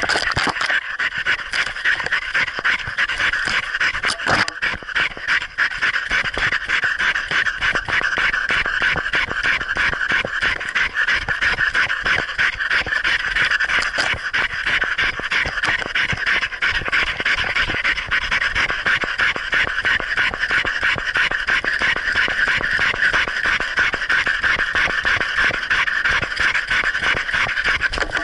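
A dog panting rapidly and steadily as it runs, the breaths very close and loud because the camera is strapped to its muzzle.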